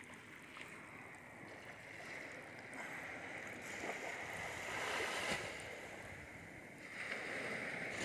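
Shallow surf washing in and out over fine sand at the water's edge, an even rush that swells about halfway through and again near the end.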